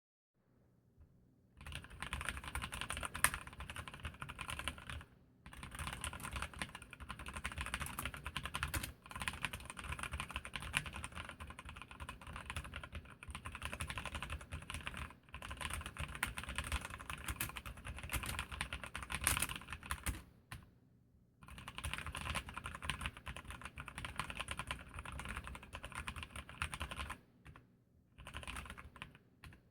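Typing on an Archon mechanical keyboard with Kailh Red linear switches: a fast, continuous run of key clacks starting about a second and a half in, broken by a few short pauses.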